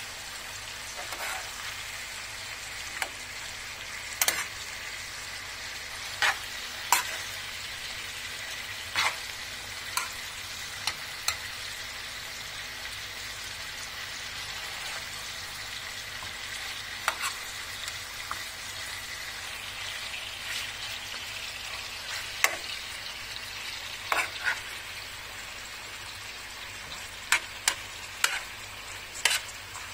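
Chicken sizzling as it fries in a sac pan: a steady hiss broken by scattered sharp clicks and knocks as it is stirred.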